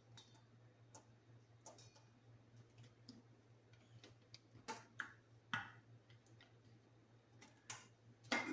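Faint scattered clicks and taps of the coffee grinder's plastic parts being handled and fitted together, with a few louder knocks about halfway through and again near the end.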